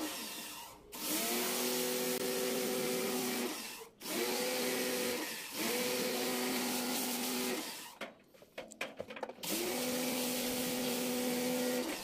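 Electric pressure washer's motor and pump running with the hiss of the water spray. It stops and starts again about four times, and the hum rises in pitch at each start as the trigger is squeezed.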